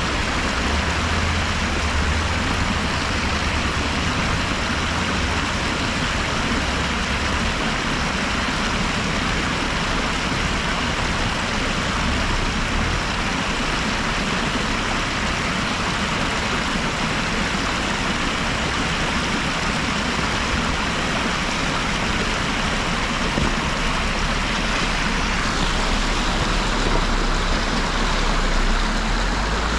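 Off-road 4x4 vehicle driving, a low engine drone under a steady rushing noise; the drone is strongest in the first few seconds and again near the end.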